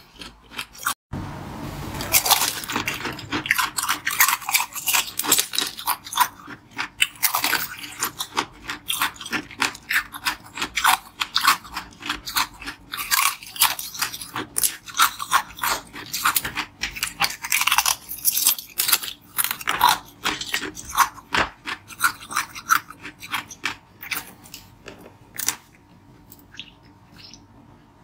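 Ice being bitten and chewed close to the microphone: dense, rapid cracking and crunching that thins out to a few quieter crunches near the end.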